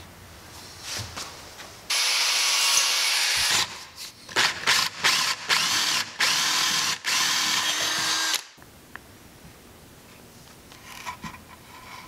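Power drill with a twist bit boring a small hole into a wooden birdhouse. It runs steadily for about a second and a half, then in several short stop-start bursts, then steadily for about two seconds before stopping. A few faint taps follow near the end.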